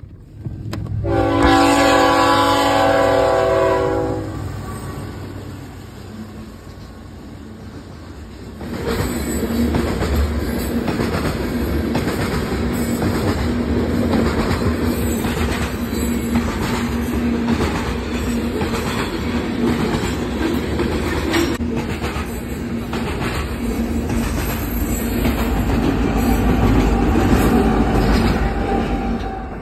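Kansas City Southern freight train with its Tier 4 diesel locomotive. A chord horn sounds one blast of several tones about a second in, lasting about three seconds. From about eight seconds in, cars roll past with a steady clickety-clack of wheels over rail joints, and the locomotive's diesel rumble grows louder near the end.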